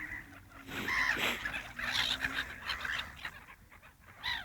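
Several birds giving short, irregular calls as they squabble over food thrown to them.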